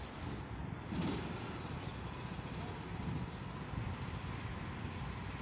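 Norfolk Southern freight train of autorack cars rolling away into the distance: a steady low rumble of wheels on rail, with a brief bump about a second in.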